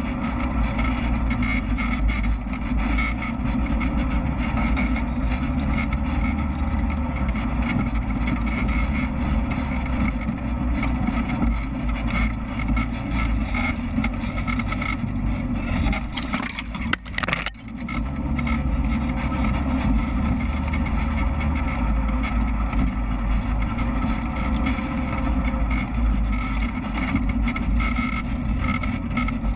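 Off-road vehicle's engine running steadily under way along a dirt trail, heard as a deep, continuous rumble. A little past the middle the sound drops away for about a second, with a couple of sharp knocks.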